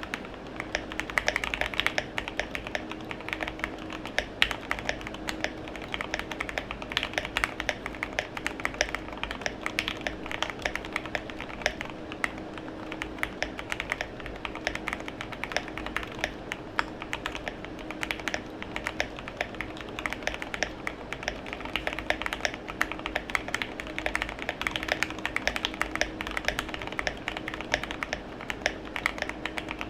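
Continuous fast typing on an RK61 60% mechanical keyboard in a full aluminium case, with lubed Gateron Milky Yellow linear switches. The keystrokes come as a dense, uneven stream of clicks.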